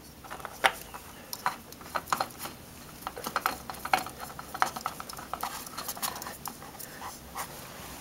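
Soft, irregular clicks and scuffs of hands threading a new spin-on oil filter onto a Yamaha FZ6's engine by hand, several small knocks a second.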